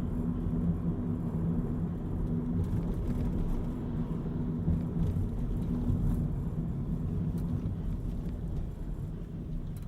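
Car running, heard from inside the cabin: a steady low rumble with a low engine hum, easing slightly near the end.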